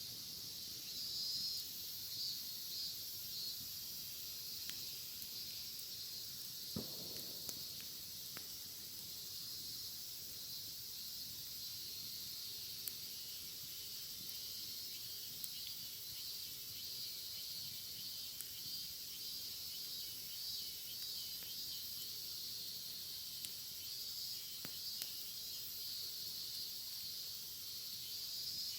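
A chorus of cicadas calling steadily, a shrill pulsing buzz. A bonfire crackles now and then, with one sharper pop about seven seconds in.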